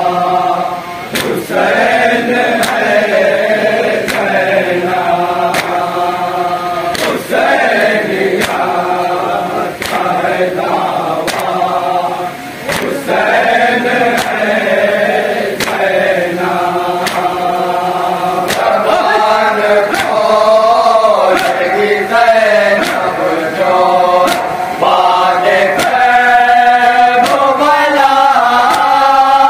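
A group of men chanting a noha, the Shia mourning lament, led by a reciter at a microphone, with a sharp slap about once a second keeping time: matam, hands beating on chests.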